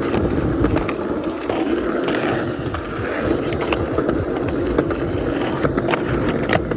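Skateboard wheels rolling steadily over concrete, with a few sharp clacks of the board in the second half.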